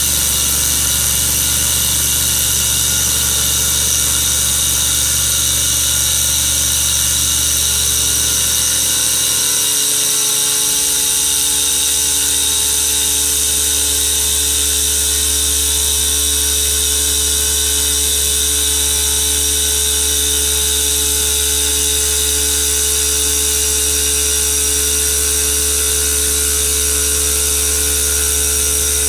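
5-axis CNC router's 12 kW water-cooled spindle running steadily as its tool mills a black granite block, with a high hiss of coolant water spray over the machine hum. About ten seconds in the low hum briefly dips and settles at a slightly different tone.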